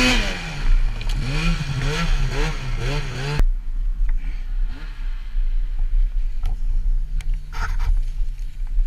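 Arctic Cat mountain snowmobile engine coming down off high revs, then blipped up and down several times as the sled bogs in deep powder. About three and a half seconds in the sound cuts off sharply, leaving the engine idling low with a few faint knocks.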